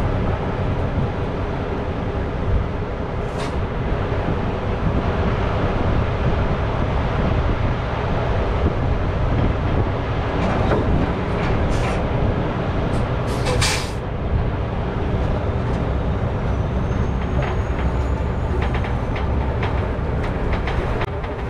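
Loaded log truck and trailer, heard from the trailer: a steady rumble from the truck's diesel engine. Sharp clanks and rattles from the trailer come about ten to fourteen seconds in, as the rig starts rolling forward.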